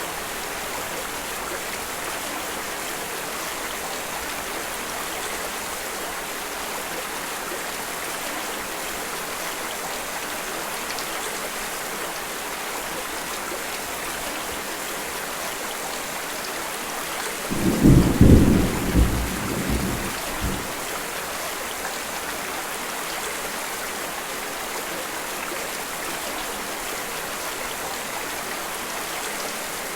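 Steady rain falling. About halfway through, a rumble of thunder lasting about three seconds.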